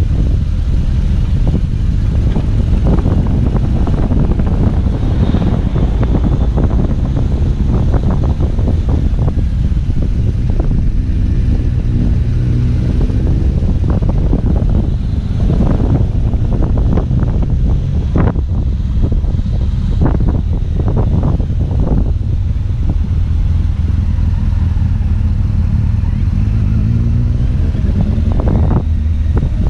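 BMW R1200GS boxer-twin engine running on a downhill mountain ride, heard under heavy wind buffeting on a helmet-mounted camera's microphone. The engine note rises and falls through the bends.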